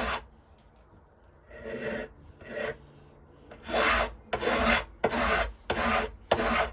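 Hand file rasping on knife handle scales in back-and-forth strokes. A pause of about a second and a half near the start, then two lighter strokes, then steady strokes about two a second.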